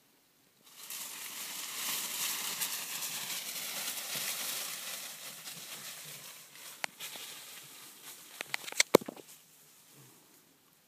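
Dry brush and fallen oak leaves rustling and crackling for several seconds as something moves through a brush pile, then a few sharp twig snaps near the end, the loudest just before the rustling dies away.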